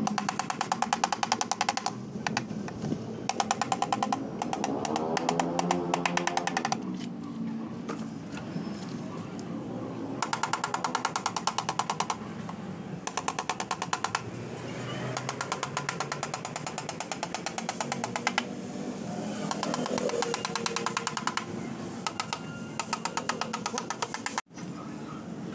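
A bent metal rod scraped across a radiator's finned core, giving a fast rattle of clicks in bursts of one to three seconds with pauses between.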